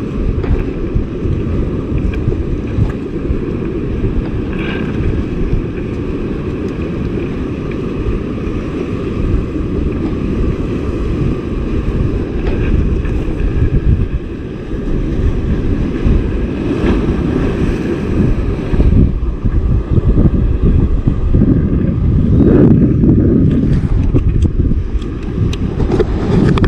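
Strong wind buffeting a chest-mounted camera's microphone: a dense, steady low rumble that swells in gusts and grows louder near the end.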